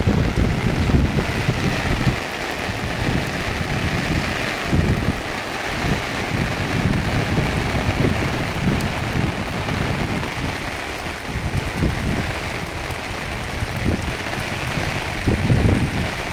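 Heavy monsoon rain falling steadily on fields and foliage, a continuous hiss, with irregular gusts of wind buffeting the microphone.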